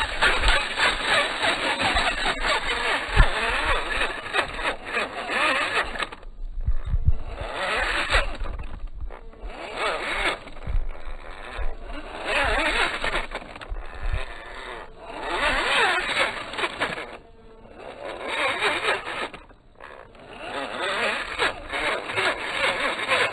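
RC rock crawler's motor and drivetrain running in bursts as it climbs over rock, with several short pauses where it stops.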